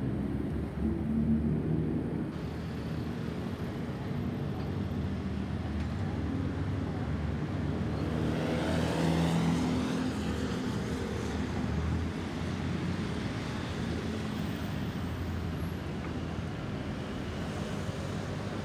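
Boeing 737-800 jet airliner passing overhead, its CFM56 turbofan engines giving a steady rumble. The rumble swells to its loudest about halfway through, with a sweeping, phasing hiss, then eases off.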